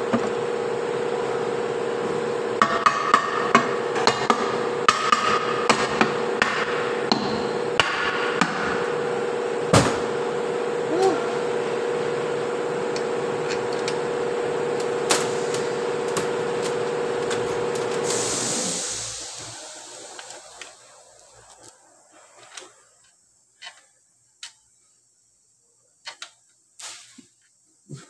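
Metallic clicks and taps as bolts and tools are handled on the aluminium case of a Toyota RAV4 CVT transmission during reassembly, thickest in the first ten seconds. A steady machine hum with a constant tone runs underneath and dies away about two-thirds of the way through, leaving only a few light clicks.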